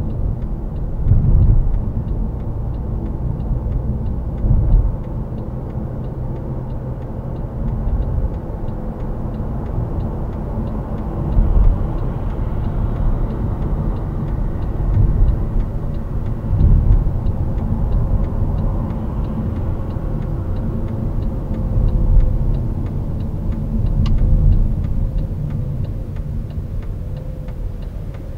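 Inside the cabin of a Mercedes-Benz W212 E-Class driving at speed: a steady low rumble of tyre and road noise with the engine underneath, swelling louder several times.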